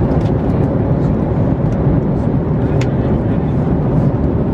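Steady low rumble of an airliner's cabin noise in flight, with a light click about three seconds in.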